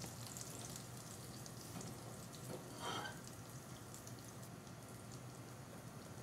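Flour-coated fishcakes frying gently in shallow oil in a stainless steel pan: a soft, steady sizzle with faint crackling pops. A brief louder sound about three seconds in.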